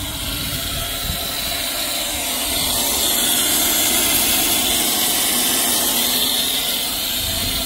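Pressurised Rim Guard beet-juice ballast and air jetting out of a Kioti CX2510 tractor tire's open valve stem in a steady hissing spray. The core has blown out of the rubber valve stem, which the owner blames on the beet juice eating the glue that holds the core.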